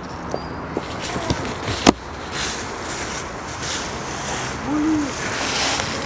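Footsteps crunching and rustling through a thick layer of dry fallen leaves, a swell of rustle with each step, after a few sharp clicks in the first two seconds.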